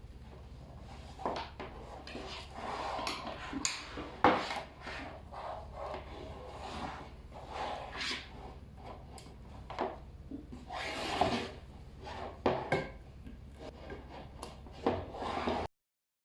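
Hands handling cables and plastic plug connectors while joining a T-cable to an LED pixel tube: irregular rubbing and rustling with scattered clicks, the sharpest about four seconds in. A low steady hum lies underneath, and the sound cuts off abruptly near the end.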